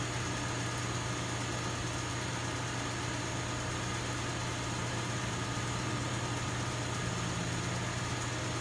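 Neon processing plant's vacuum pump and air blower running with a steady, even drone.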